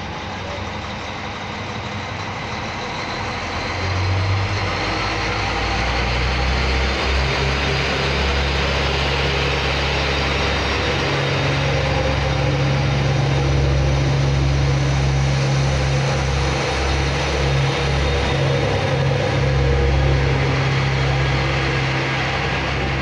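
Underfloor diesel engines of an NI Railways CAF Class 3000 diesel multiple unit working under load as the train pulls away. The low engine drone grows louder about four seconds in and then holds steady, with the rumble of the train rolling past.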